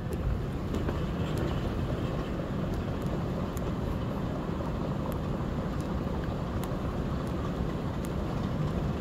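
Airport moving walkway running with a steady low rumble, with faint clicks about once every three-quarters of a second.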